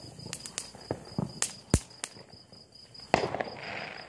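Crickets chirping in a steady, evenly pulsing trill, with sharp firework pops and crackles scattered through it. About three seconds in, a louder rush of firework noise sets in.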